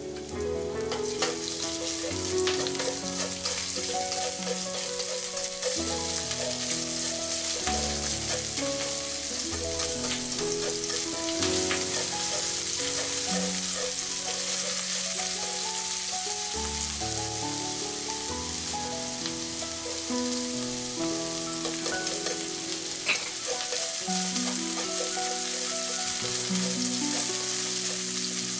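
Chopped garlic and ginger strips sizzling steadily in hot oil in a wok, stirred with wooden chopsticks, with a few light clicks of the chopsticks against the pan.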